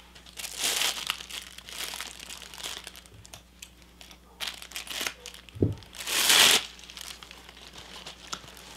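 Crinkly packaging rustling in several bursts as a purse is handled. The loudest burst comes about six seconds in, just after a soft thump.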